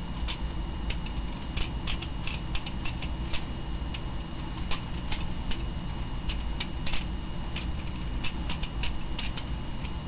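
Butterfly knife (balisong) being flipped and twirled: irregular sharp metallic clicks as the handles swing open and shut, over a steady low hum.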